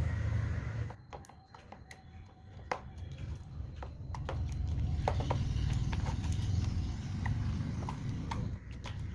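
Metallic slime being kneaded and stretched by hand, giving scattered sticky clicks and pops over a low handling rumble.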